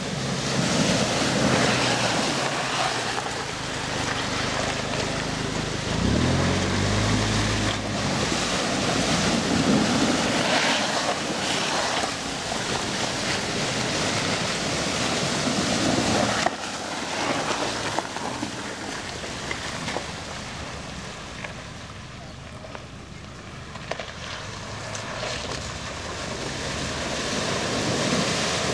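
Cars and SUVs driving one after another through a shallow river ford, their tyres splashing and churning the water while their engines run. An engine's hum is strongest about six to eight seconds in.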